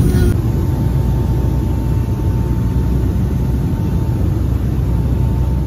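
Airliner cabin noise: a steady low rumble of engines and airflow, with a faint steady whine above it.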